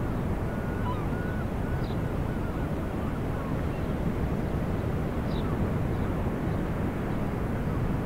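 Steady low outdoor rumble, with a few faint high chirps over it.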